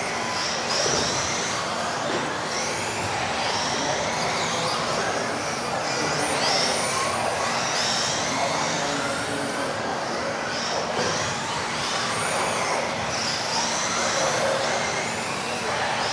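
Several electric RC off-road racing cars running together, their motors making overlapping high whines that rise and fall over and over as they accelerate and brake.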